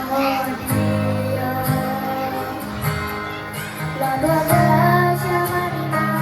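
Children's choir singing in unison with held notes, over an instrumental accompaniment.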